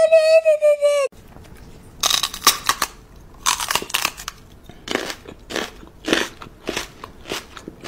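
A dog chewing something hard and crunchy, with irregular loud crunches about every half second. It follows a high held note that cuts off about a second in.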